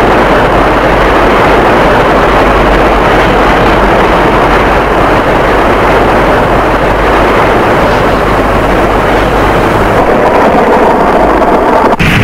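Loud, steady jet-like rushing roar with a low hum under it, a film flight sound effect for Ultraseven flying low over the sea; it breaks off near the end.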